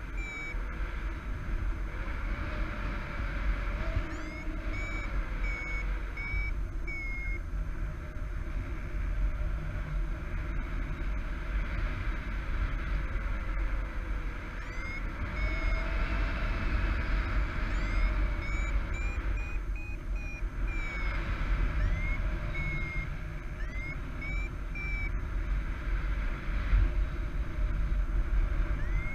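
Paragliding variometer beeping in short repeated tones whose pitch steps and glides up and down: the climb tone of a glider rising in a thermal. The beeps thin out for several seconds near the middle. Under them, steady wind rushes on the microphone.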